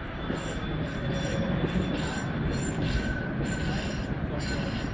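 Tram wheels squealing on a curved track, in a string of high-pitched squeals about two a second, over the low steady rumble of city traffic.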